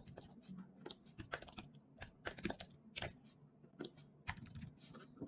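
Faint typing on a computer keyboard: irregular runs of quick keystrokes.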